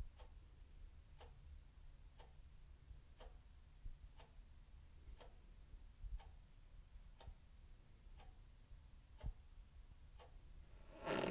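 A clock ticking quietly and evenly, about once a second. Near the end a short, louder burst of noise cuts in.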